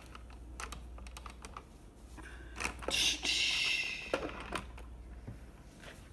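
Irregular light clicks and taps, with a louder stretch of rustling hiss from about three seconds in that lasts just over a second.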